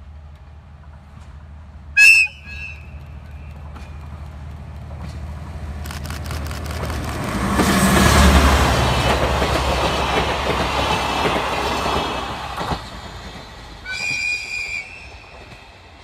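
DE10 diesel-hydraulic locomotive hauling coaches past: a short, very loud horn blast about two seconds in, then the engine's low rumble and the wheels clattering over rail joints swelling as it passes close, loudest around the middle and cutting off sharply. A second, quieter horn blast comes near the end.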